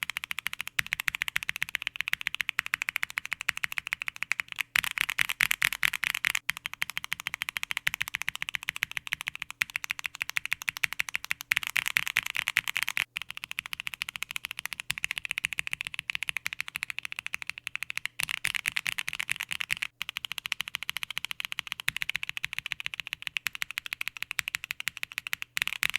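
Mechanical keyboard being typed on fast and continuously, fitted with Akko POM Pink switches (full POM housings, POM stems, long stems): a dense, full clatter of keystrokes, with a few brief gaps.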